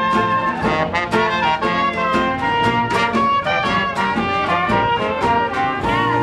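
Traditional New Orleans jazz street band playing: sousaphone, trumpet, trombone and clarinet over bass drum and cymbal, with strummed guitars and a steady drum beat. Near the end the band settles onto a long held chord.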